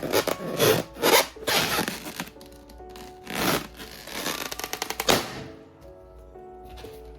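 Cartoon-style fart and pooping sound effects: several noisy bursts, some of them rapid fluttering ones, the longest ending about five seconds in. Light background music plays under them and carries on alone for the last two seconds.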